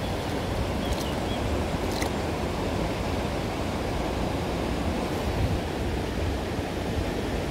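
River water flowing steadily over a shallow, stony bed, an even rushing noise.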